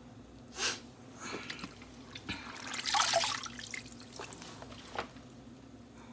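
Washed, cut collard greens being lifted dripping out of a sink full of water, with water splashing and dripping back into the sink in a few short bursts. The biggest burst comes about three seconds in.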